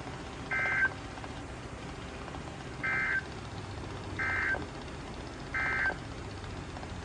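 Emergency Alert System SAME end-of-message data bursts: four short, buzzy two-tone digital chirps, the last three evenly spaced about a second and a third apart. They mark the end of the alert message.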